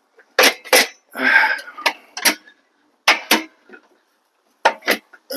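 Sharp metal clicks and knocks from the steel frame of a Black+Decker WM2258 folding workbench as it is taken apart, about eight separate strikes spread unevenly, with a brief scraping sound about a second in.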